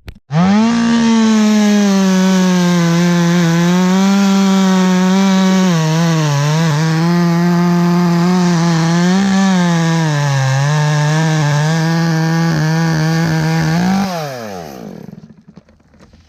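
Chainsaw running at full throttle, cutting through a white oak limb; its pitch dips slightly twice under load. Near the end the throttle is released and the engine winds down.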